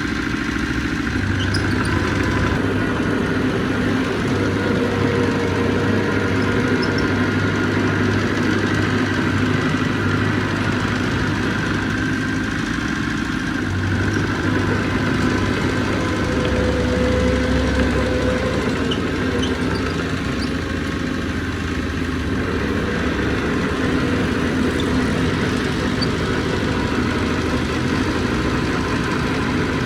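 Heavy diesel engine of earthmoving machinery running steadily, its low hum shifting in pitch for a few seconds past the middle.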